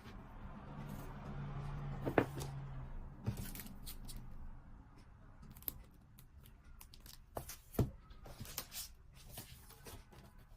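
Merchandise packaging being handled and opened: rustling and tearing of wrapping, with scattered clicks and taps, the sharpest about two seconds in and near eight seconds.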